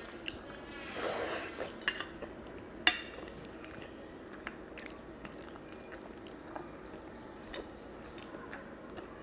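Wet squelching of fingers working curry gravy and rice on a steel plate, with several sharp clicks of fingers against the plate, the loudest about three seconds in.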